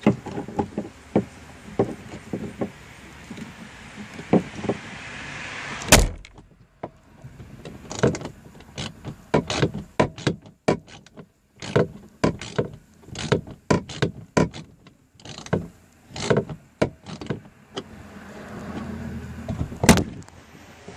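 Irregular metal clicks and knocks from handling a licence plate and a tape-wrapped bolt at the car while pushing the bolt into the plate's hole, with a sharp knock about six seconds in and another near the end.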